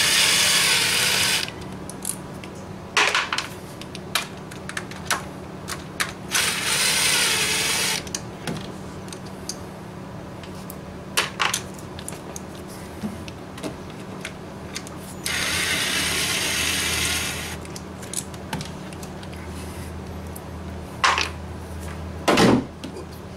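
A small power tool with a 10 mm socket spinning out coil-pack hold-down bolts, running in three bursts of about two seconds each. Sharp clicks and knocks of handled metal parts fall between the bursts.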